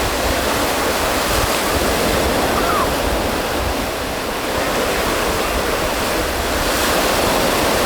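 Ocean surf washing on a beach, with steady wind buffeting the microphone in a low rumble.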